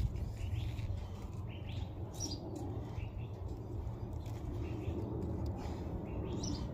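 Birds chirping now and then: a few short high calls over a steady low background rumble.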